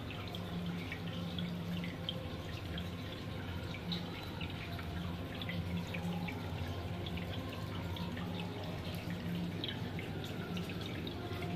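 Aquarium water bubbling, with many small pops and drips from rising air bubbles, over a steady low hum.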